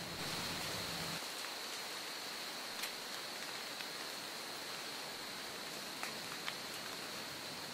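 Quiet wet woodland ambience: an even hiss with a steady high-pitched tone, and a few scattered light ticks of water dripping from the wet trees. A low rumble stops about a second in.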